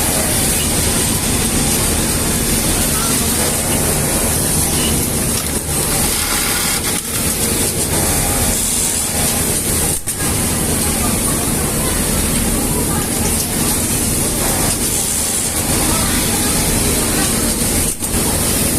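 Industrial pattern sewing machine running with a steady, loud mechanical noise and a high hiss, dipping briefly a few times, with faint voices underneath.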